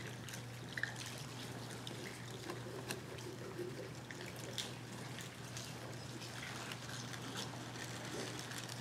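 Quiet room tone: a steady low hum with scattered faint clicks and small handling noises.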